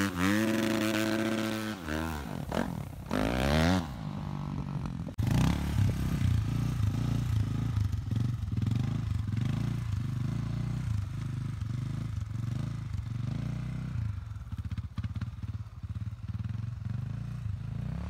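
Dirt bike engine revving hard, its pitch sweeping up and down several times through the first few seconds. After about five seconds a small ATV engine takes over, running lower in pitch with an uneven, pulsing throttle.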